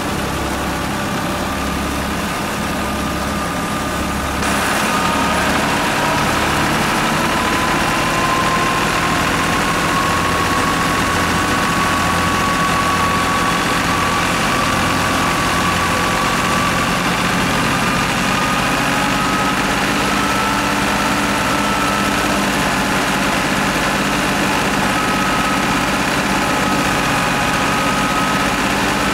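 Batala wheat thresher running off the PTO of a New Holland Fiat 480 tractor while wheat is fed in: the drum and belts give a steady whine that slowly rises in pitch over the tractor's diesel engine working under load. The sound gets louder about four seconds in.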